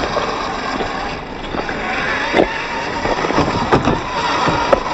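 Traxxas TRX-4 RC crawler with a Hobbywing Quicrun Fusion motor driving slowly over dirt and stones: a steady electric motor and gear whine, with tyres crunching on gravel and a few sharp clicks as it climbs over rocks.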